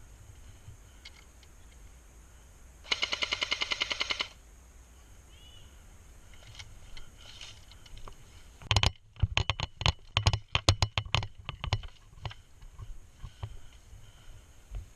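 Airsoft rifle firing a full-auto burst of about a second and a half, roughly ten shots a second with a motor whir under the rapid clicking. About six seconds in comes a run of loud, irregular cracks and knocks lasting some three seconds.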